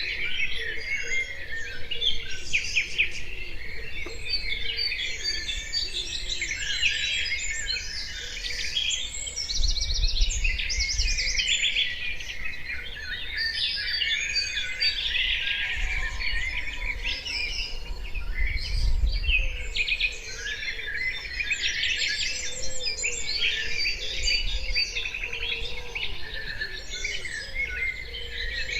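Many birds singing and chirping at once in a dense, continuous chorus of overlapping trills and chirps. A brief low rumble comes about a third of the way in and again about two thirds in.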